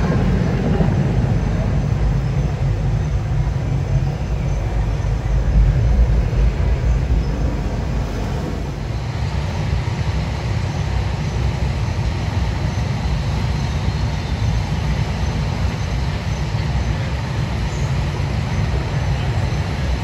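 Steady low rumbling background noise of a large airport terminal hall, with no distinct individual sounds; it eases slightly about nine seconds in.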